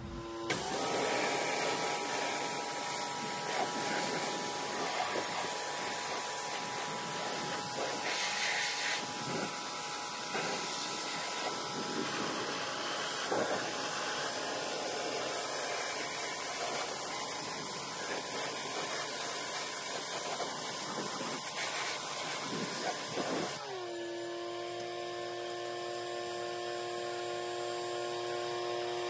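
Pressure washer spraying water into a car's front wheel well: a steady motor whine over the hiss of the jet. Near the end the spray stops and the whine drops to a lower steady pitch.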